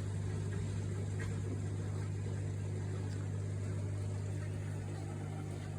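Cookology countertop dishwasher just started on its program: its pump motor runs with a steady low hum.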